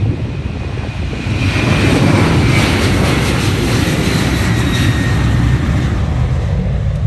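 Boeing 737 airliner's twin jet engines at takeoff thrust on the takeoff roll. The engine noise swells from about a second in, with a high whine that falls slightly in pitch as the jet passes, then eases near the end.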